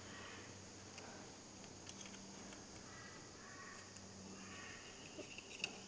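Quiet workshop with a low steady hum and a few faint light clicks of metal parts being handled: a dismantled power steering gear pump and an O-ring pick. One slightly sharper click comes near the end.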